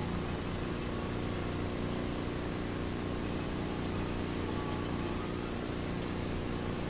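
Steady hiss with a low, unchanging hum of several tones: the background noise of an old video recording, with no other sound standing out.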